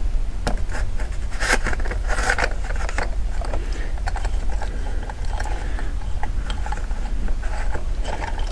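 Scraping and clicking of metal parts as an Amal 275 pre-monobloc carburettor is unscrewed and handled by hand, loudest in the first couple of seconds, then lighter ticks, over a steady low hum.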